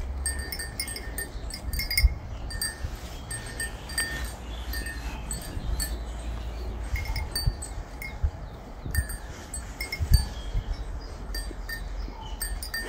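Small metal chimes tinkling irregularly, many short high ringing notes, over a steady low rumble. A couple of soft thumps, about two seconds in and about ten seconds in.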